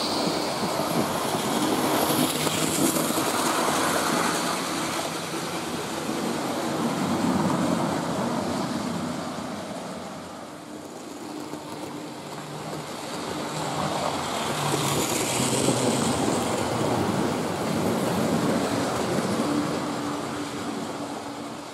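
Model locomotives, a Thunderbolt 0-4-2 and a GWR 1400-class 0-4-2T, running round the layout's loops: the rolling rumble of small metal wheels on the rails with a steady electric motor hum. The sound swells twice as the trains pass close by and eases off in between.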